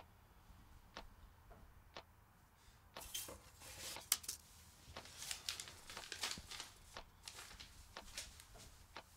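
Irregular rustling and crinkling with small clicks, as something is handled, over a low steady room hum. A few faint single clicks come about a second apart before the rustling starts, about three seconds in.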